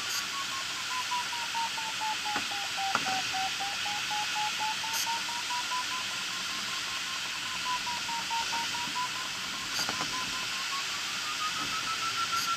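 A glider's audio variometer beeping in a fast, even series, its pitch sinking, rising, dipping again and climbing near the end as the climb rate changes while circling in a thermal. Underneath is the steady hiss of air rushing past the cockpit canopy.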